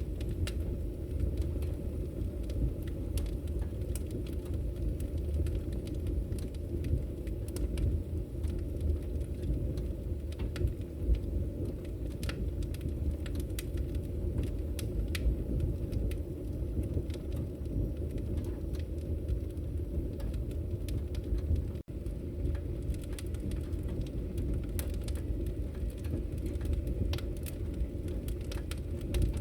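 Wood fire burning: a steady low rumble of flames with scattered sharp crackles and pops from the burning logs.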